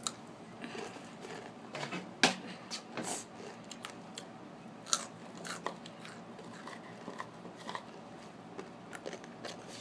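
Takis rolled corn tortilla chip being bitten and chewed with the mouth close to the microphone: irregular sharp crunches, the loudest about two seconds in, thinning to softer chewing later.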